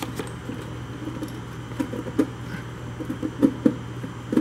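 Small metallic clicks and rattles, irregular and coming thicker and louder near the end, as the control housing bracket is worked loose and pulled out among the wiring of a toaster's control compartment. A steady low hum runs underneath.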